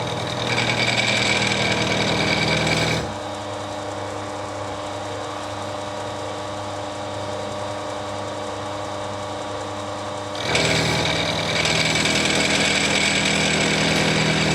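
Milling machine cutting a groove in a 1/2-inch silver steel bar with a large second-hand milling cutter: loud cutting noise for about three seconds, then the machine running quieter for about seven seconds, then the loud cutting again. The cutter is not a good one, and the spindle speed is one he means to slow down.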